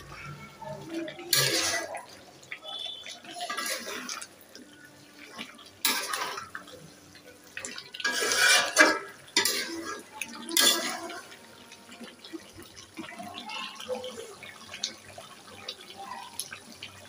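Water poured and splashed in a pot in several short gushes, the longest and loudest about halfway through, with dishes knocking quietly in between; it fits the water being changed on boiled eggs to rinse them.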